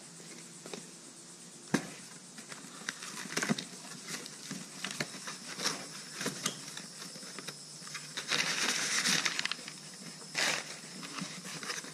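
Cardboard box being opened by hand: flaps flexing and brown packing paper rustling and crumpling, with scattered knocks, a sharp click about two seconds in, and a longer burst of paper rustling near the end.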